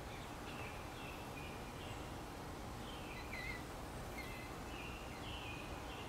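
Faint songbird chirps and short high notes, a dozen or so scattered through, the clearest a little after five seconds in, over a steady low outdoor background hum.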